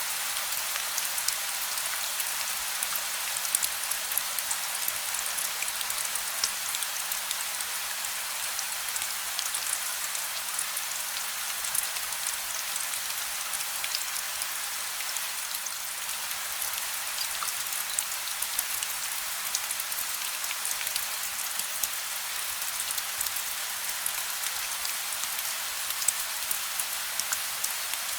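Steady rain with no thunder: an even hiss of rainfall, with many small drop ticks on a surface.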